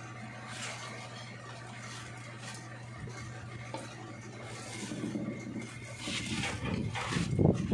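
Copper magnet-wire leads being handled and twisted together, with faint rustling and scraping over a steady low hum. The handling noise grows louder and busier in the last two seconds or so.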